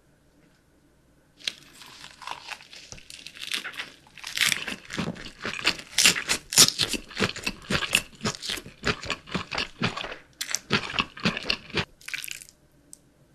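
Close-miked crunchy chewing of crisp food, a rapid run of sharp crackling crunches. It starts about a second and a half in and stops shortly before the end.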